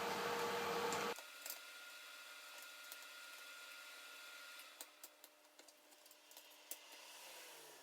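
Faint, scattered clicks and light taps of small hand tools and metal laptop parts as the screws of a MacBook Pro display hinge are undone. A steady background hum cuts off abruptly about a second in.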